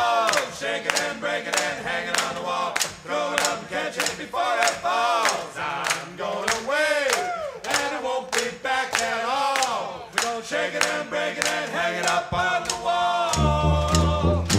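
Music: voices singing together over a steady percussion beat of about two strokes a second. About a second before the end, heavy drums and bass come in.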